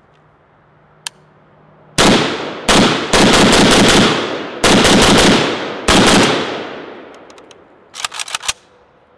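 AK-47 rifle in 7.62x39 being fired in a rapid string of shots, several of them running together, each with a long echoing decay, as the magazine is emptied. A quick cluster of small clicks follows near the end.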